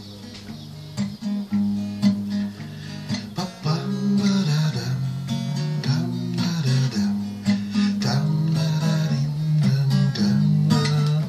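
Acoustic guitar playing the instrumental opening chords of a song, one chord change after another.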